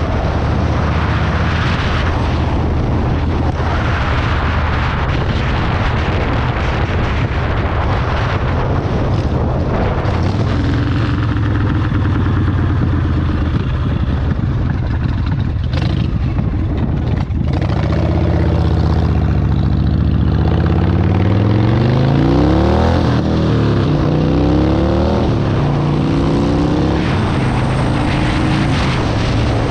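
Harley-Davidson Softtail's V-twin engine running under way. It eases off and runs lower for a while, with two sharp clicks a little past halfway. It then pulls away harder, its pitch rising and falling several times as it goes up through the gears.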